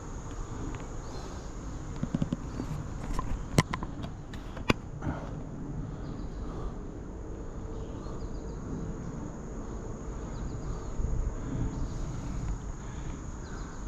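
Insects trilling steadily at a high pitch, with a few sharp clicks a little after three seconds in and again near five seconds, over a low rumble.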